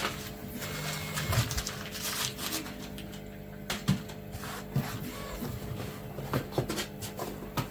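Packaging and bagged parts of a 3D printer kit being handled: rustling with scattered clicks and knocks, over a steady low hum.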